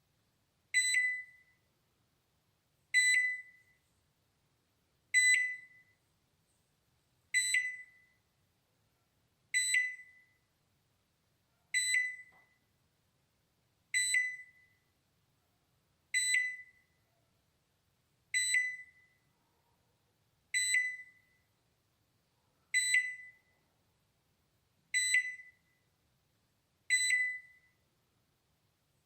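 Balay microwave oven alarm: a single high beep repeating about every two seconds, each starting sharply and fading out quickly.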